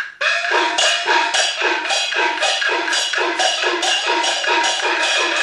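Traditional Chinese opera percussion accompanying the puppet show: a fast, even beat of about three strokes a second, ringing like gongs and cymbals, with a held pitched tone above it.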